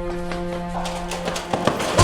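Background music of sustained, held tones, with two or three sharp knocks in the second half.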